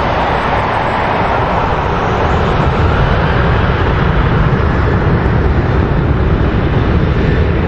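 Boeing 737's twin CFM56 turbofan engines at high thrust as the airliner rolls down the runway for takeoff: a loud, steady jet noise with a deep rumble that builds from about three seconds in.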